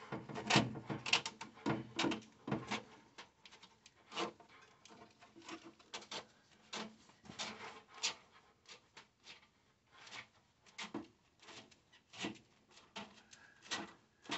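Irregular clicks and light knocks of a wrench and wiring being worked against metal in a car's engine bay, thickest in the first few seconds, then sparser.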